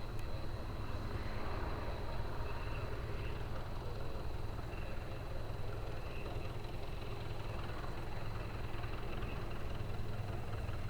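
A light aircraft's piston engine running steadily at low power, a constant low drone with no rise or fall.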